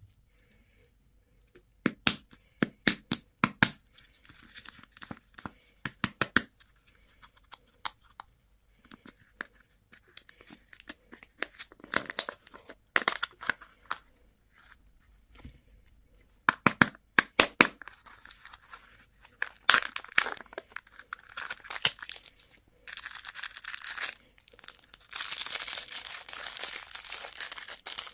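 Candy and toy packaging being torn open and crinkled: clusters of sharp crackles and snaps, then steady crinkling for the last few seconds.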